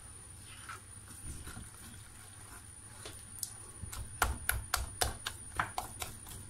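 Hand beating thick besan (gram flour) batter in a glass bowl: soft mixing at first, then from about three and a half seconds in a quick run of sharp slaps and knocks against the glass, about four a second.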